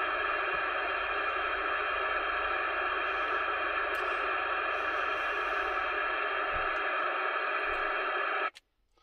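Steady hiss of FM receiver noise from a Cobra CB radio's speaker on the 27 MHz band, even in level, cutting off abruptly about half a second before the end.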